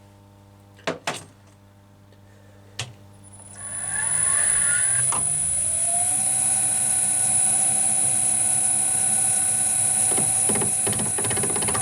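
A few clicks of handling at the machine, then a metal lathe starting up, its motor winding up in pitch over about two seconds and settling into steady running with a high whine.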